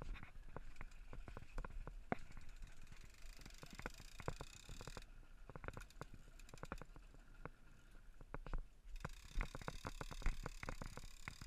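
Low wind rumble on the camera aboard a boat at sea, with frequent irregular clicks and knocks.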